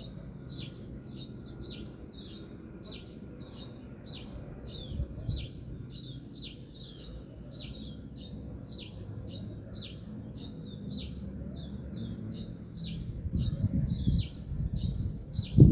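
Small birds chirping continuously in a quick series of short, falling chirps, several a second. Beneath them is a low rumbling noise that grows louder near the end.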